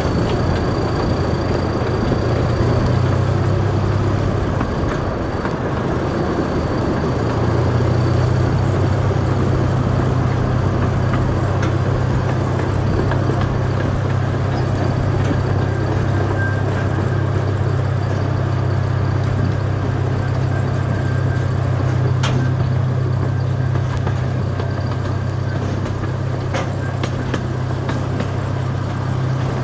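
Miniature zoo train running steadily along its track with riders aboard: a low engine drone over rolling wheel and rail noise, the drone shifting slightly in pitch about seven seconds in.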